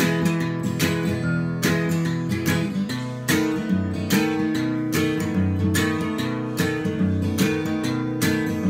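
Acoustic guitar strummed in a steady rhythm, with a chord change about three seconds in.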